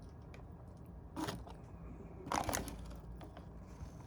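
Two short crunching, crinkling noises close to the microphone, the first about a second in and a louder one around two and a half seconds in, with a few light clicks between: handling or eating of fast food.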